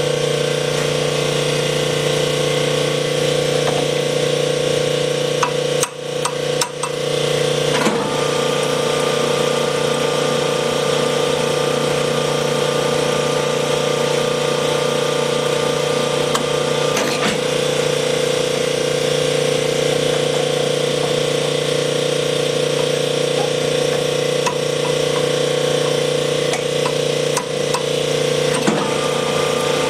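Sunnen honing machine running with a steady hum while a Willys connecting rod is stroked back and forth on the oiled honing mandrel, resizing the worn rod's big-end bore. A few light knocks and clicks of the rod against the mandrel break in around a quarter of the way through, again about midway, and near the end.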